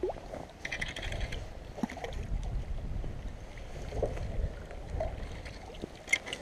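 Wind noise on the microphone, with light water splashing and a few small clicks as a hooked rainbow trout is played and netted at the water's edge.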